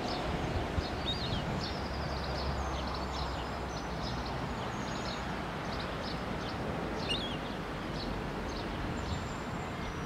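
Outdoor ambience: a steady low rumble with many short, high-pitched bird chirps and peeps scattered throughout.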